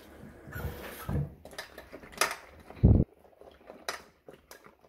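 Clinks and knocks of a stainless steel bowl and vegetables being handled in a kitchen sink, with a dull thump about three seconds in.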